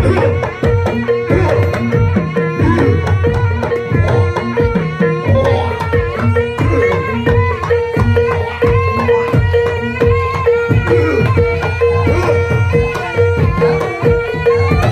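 Barongan accompaniment music in the Javanese gamelan style: hand drums play a fast, busy rhythm under a pitched melody, over one steady held tone.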